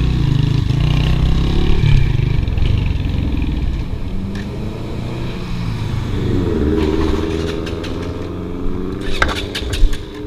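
Small single-cylinder 150cc motorcycle engine running as the bike pulls away, rising in pitch about six seconds in, then fading, with a few sharp knocks near the end.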